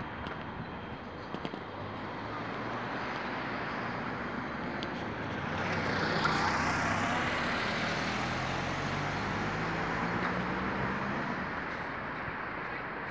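Street traffic: steady road noise, with a car's engine and tyres passing close by, swelling about six seconds in and fading over the next few seconds.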